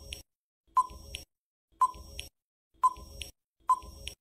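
Quiz countdown-timer sound effect: a short pinging tick about once a second, four times, each followed by a fainter second tick, like a clock's tick-tock.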